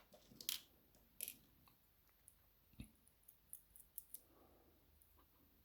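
Faint, scattered metallic clicks and ticks, about ten spread unevenly: small lock pins and parts being handled while a dimple lock is taken apart.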